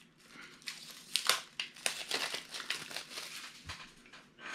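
The peel-off metal lid of a Funko Soda collectible can being worked off by hand: irregular scratchy crinkling with small clicks.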